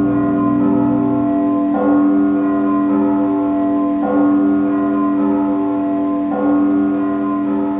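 Instrumental ending of a song: sustained keyboard chords, a new chord struck three times, about every two seconds.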